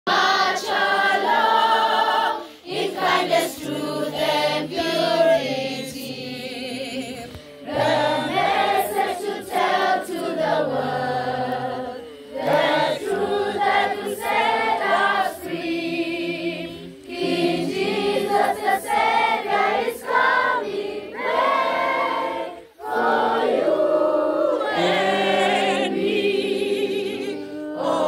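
A large group of children and young people singing together as a choir, with short breaks between phrases.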